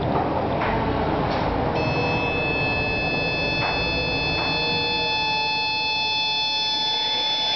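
Large 36-volt forklift DC motor switched by a homemade motor controller. About two seconds in, a steady high-pitched whine of several tones sets in, with a few faint clicks. A lower tone comes in partway through and starts to rise near the end.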